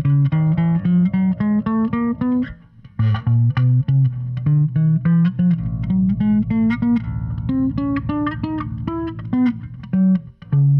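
1973 Gibson SB-350 electric bass, neck and bridge pickups both on with everything wide open, played one note at a time up the neck. The notes step upward in pitch, about four a second, in two rising runs with a short break about two and a half seconds in.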